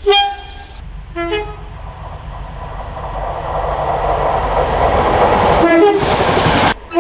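Two-tone train horn: a short blast at the start, then a two-note low-high sounding about a second in. The rumble of the approaching train grows steadily louder, another low-high two-note sounding comes near the end, and the sound then cuts off abruptly just before a final horn blast.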